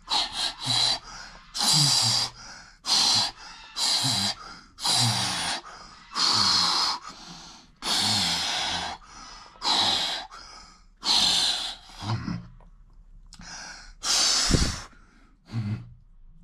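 A man breathing hard through his mouth, quick forceful breaths about one a second with a short pause about three-quarters of the way through: the cold-shock breathing of someone just lowered into near-freezing ice-bath water.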